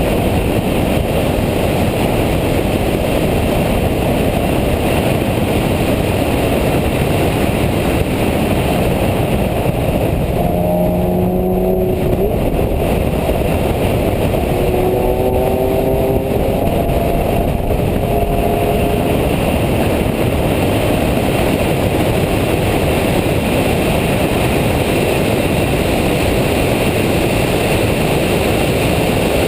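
Loud, steady cabin noise of a Nissan Nismo track car driven at speed on a race track: engine, tyre and wind noise together. Short whining tones come in twice, about ten and fifteen seconds in.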